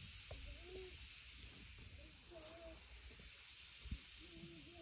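Faint, steady outdoor hiss on a phone microphone, with faint distant voices talking and two low bumps on the microphone, one at the start and one about four seconds in.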